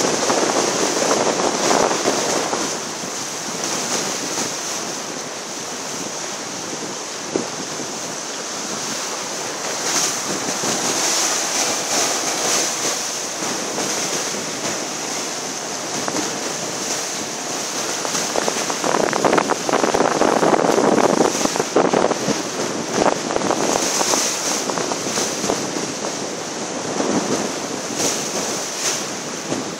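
Wind buffeting the microphone over rushing, splashing water in a choppy tidal current, with louder surges now and then, the strongest about twenty seconds in.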